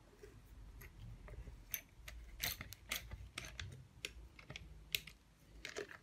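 Light, irregular metallic clicks and taps of a nut driver working on the terminal box of an old Brook electric motor, with its steel terminal cover plate knocking against the motor housing; the clicks come thickest from about two seconds in.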